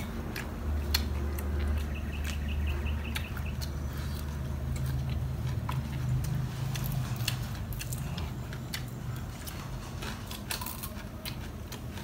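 A person eating grilled catfish: chewing with scattered small clicks, over a low steady hum. A short high pulsing chirp comes about two seconds in.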